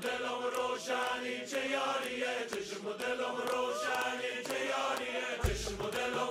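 Music: a song with singing voices over a steady beat, a deep bass coming in near the end.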